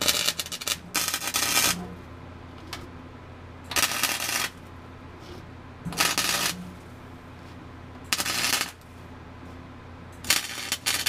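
Wire-feed welder arc crackling in five short bursts as a sheet-metal patch panel is stitch-welded into a truck floor, the longest burst at the start and the others under a second each, with a low steady hum between them.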